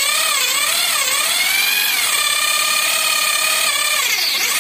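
Electric hand drill whining as it drills out a pop rivet on a racing exhaust muffler. The motor speed wavers up and down, rises and holds steady from about two seconds in, then dips near the end.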